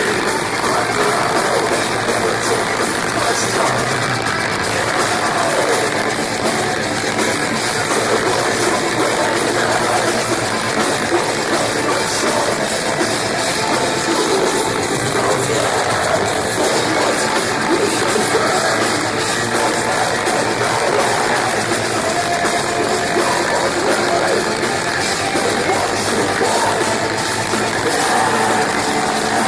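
Metalcore band playing live at full volume: heavy distorted electric guitars and a drum kit, with vocals.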